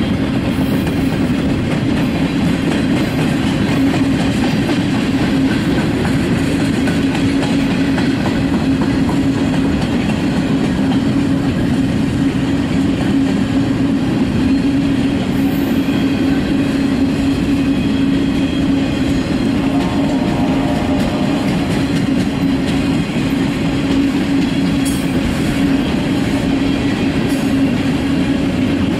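Freight train's loaded flatcars rolling past, a loud, steady rumble of steel wheels on rail.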